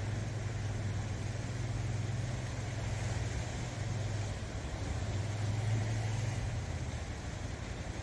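Sea waves washing and breaking over shoreline rocks, under a steady low engine hum that stops near the end.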